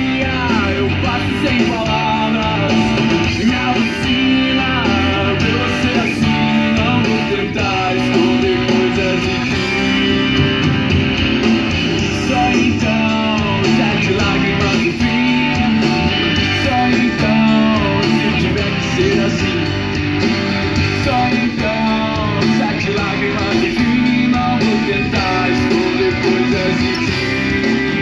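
Recorded guitar-led music playing loudly and steadily through a pair of tripod-mounted two-way PA speakers, each with a woofer and a tweeter.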